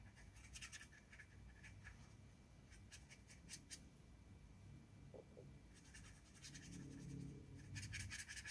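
Faint scratching of a watercolour brush stroking across watercolour paper, in a few short clusters: about a second in, around three to four seconds in, and again near the end.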